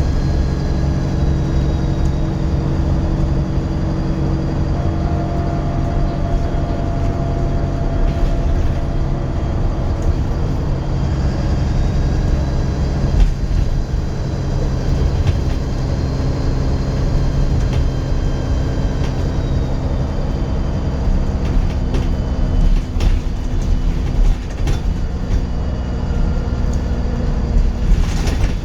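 Dennis Trident 2 double-decker bus under way, its diesel engine running with a high, thin turbo whistle over a steady low drone. The whistle's pitch drifts up and down, and short knocks and rattles come now and then, most of them in the second half.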